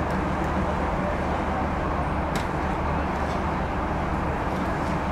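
Dubbed-in outdoor ambience track: a steady, even wash of background noise with a low hum underneath and a few faint clicks scattered through it.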